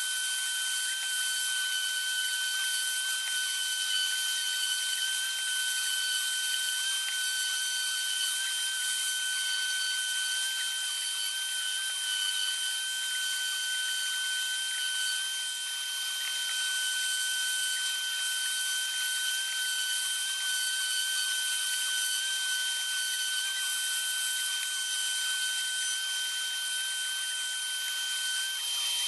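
A small motorized tool running steadily, with a high whine over a hiss; a second, lower whine cuts off near the end.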